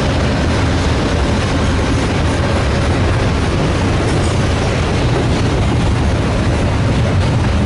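Trains passing at speed close by: a loud, steady rumble of steel wheels on rail.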